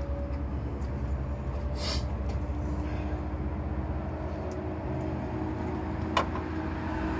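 Steady low rumble of a running vehicle engine, with a light click about two seconds in and a sharper one about six seconds in from hand work on the radiator hoses.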